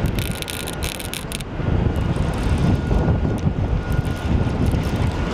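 Wind buffeting the microphone, a heavy low rumble that swells about a second and a half in. Rapid clicking in the first second and a half, with a faint steady high whine underneath.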